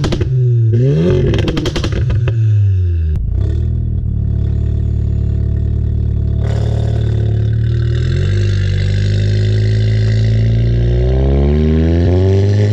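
An engine revs up and down in the first two seconds, with a short knock about three seconds in, then runs steadily, its pitch stepping up once and climbing slowly near the end.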